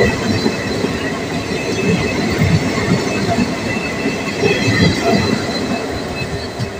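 Passenger train coaches rolling past close alongside, heard from a coach doorway: the wheels rumble with uneven knocks, and a steady high-pitched squeal runs over them.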